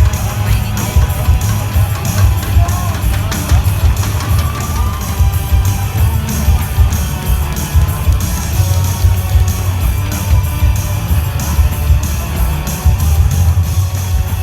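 Loud music with a heavy, steady beat.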